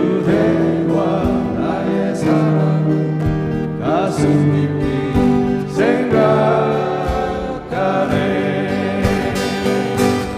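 Live acoustic band music: acoustic guitars and an electric keyboard playing a slow ballad together through small amplifiers, with a gliding melody line on top.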